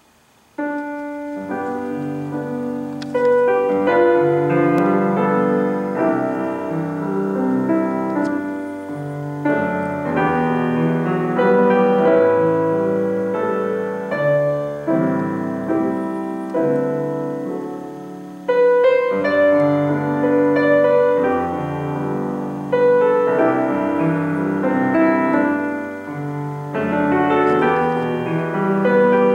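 Solo grand piano playing sustained chords under a melody, starting about half a second in.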